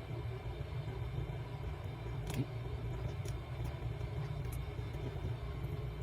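A steady low background rumble, with a few faint light clicks scattered through it, likely small phone parts or tools being handled during the flex-cable repair.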